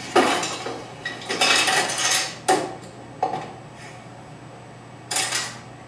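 A student-built Rube Goldberg machine running, with its parts clattering and knocking against each other. There are several sharp clatters and a longer rattle between about one and a half and two seconds in.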